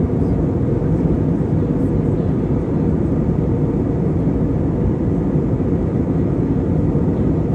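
Steady low rumble of airliner cabin noise in flight: engines and rushing air heard from inside the cabin.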